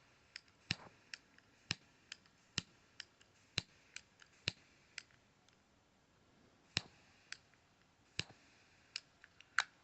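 Piezo ignition button of a Zippo 65827 double-torch butane lighter insert being clicked repeatedly: sharp single clicks at an irregular pace, with a pause of nearly two seconds midway.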